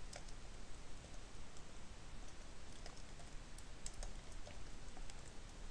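Faint typing on a computer keyboard: scattered, irregular keystroke clicks over a steady low hiss.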